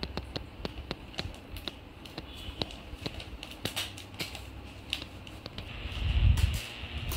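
Scattered plastic clicks and taps from handling a Bajaj Pygmy mini personal fan, then about six seconds in its small motor starts with a steady whir and a low rush of air.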